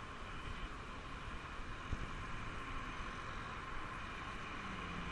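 Road traffic: cars passing close by, a steady noise of engines and tyres.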